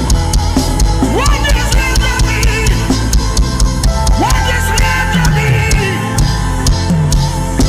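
Worship band playing an instrumental passage: a steady drum-kit beat under a sliding bass line and melodic lead lines that bend up in pitch.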